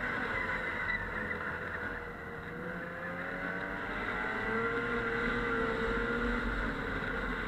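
Snowmobile engine running under way, its pitch easing off about two seconds in and climbing again a couple of seconds later.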